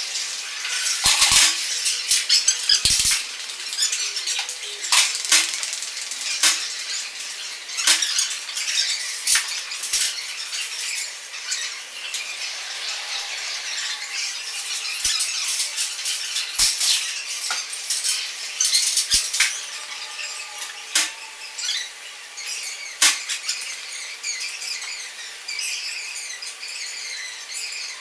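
Pieces of broken drinking glass clinking and scraping against each other as they are handled, in a string of sharp, irregular clicks.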